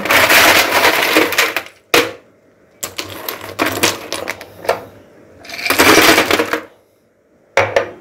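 Ice cubes clattering and clinking as a hand stirs through them in a refrigerator's automatic ice-maker bin: two loud bursts, one at the start and one about six seconds in, with lighter clinks between.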